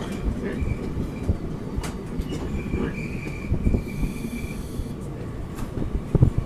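Indian Railways passenger coach rolling slowly into a station as the train brakes: a steady low rumble with wheel knocks, a thin high squeal for about two seconds in the middle, and a cluster of loud clunks near the end.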